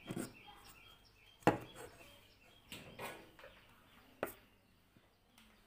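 A few light knocks and clicks from a circuit board being handled and turned over, the sharpest about a second and a half in and again near the end.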